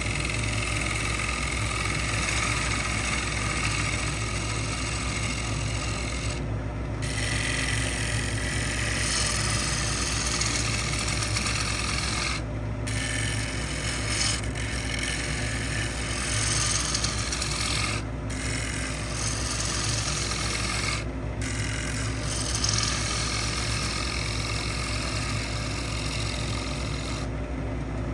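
Wood lathe running with a steady hum while a tool works against the spinning pecan bowl, a rasping hiss that breaks off briefly about five times and resumes.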